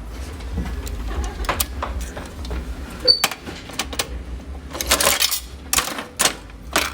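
Coin-operated toy vending machine being worked: quarters going in and the turn handle cranked, making a series of sharp mechanical clicks and clacks that grow busier near the end, over a steady low hum.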